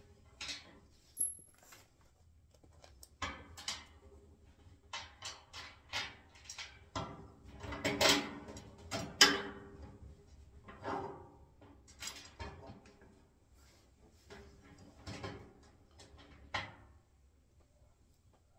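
Irregular metallic clinks and knocks of bolts, nuts and steel stays being hand-fitted to a wheelbarrow's pan and legs, with two louder knocks about eight and nine seconds in.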